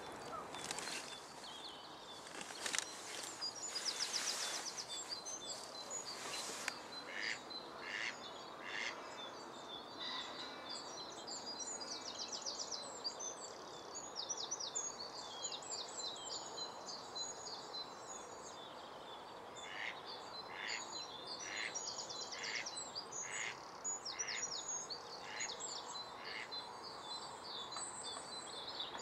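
Faint songbirds chirping and trilling with many quick high notes. Two runs of short, evenly spaced calls, a little over one a second, come about seven seconds in and again from about twenty seconds.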